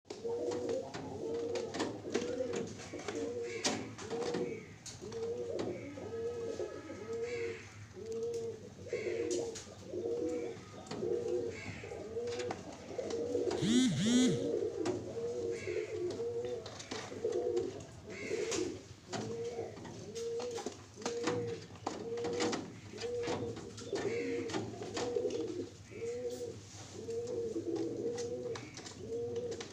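Domestic pigeons cooing, a low arched coo repeated about once a second, with scattered clicks and a louder short burst about halfway through.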